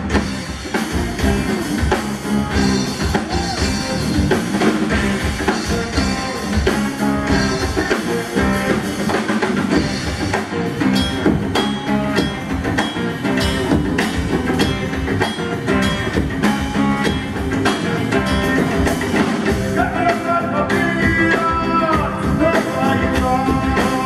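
Live fusion-rock band playing: drum kit, electric bass and guitar over a steady beat, with hand percussion from ghatam clay pots. A melodic line stands out over the band near the end.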